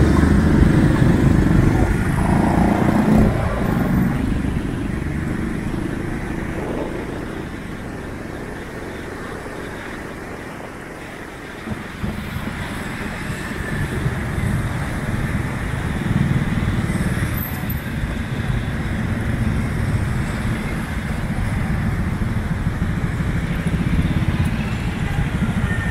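Motorbike traffic heard from a moving motorbike: engines and road noise in a dense low rumble, easing off toward the middle and picking up again suddenly about twelve seconds in.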